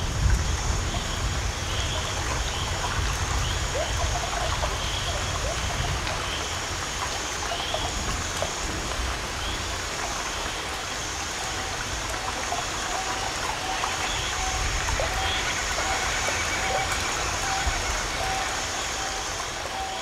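Steady sound of running water, like a stream, over a low rumble, with a few faint short calls scattered through it.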